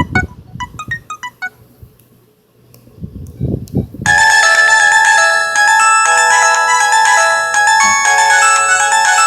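LG VX8700 polyphonic ringtones played on an LG CU500 phone. A tune of quick high notes fades out, a few low thumps follow in the pause, and about four seconds in a new, fuller ringtone melody starts suddenly and keeps playing.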